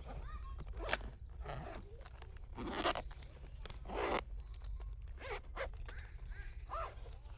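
Several short rasping scrapes and rustles, a few seconds apart, the longest about three seconds in.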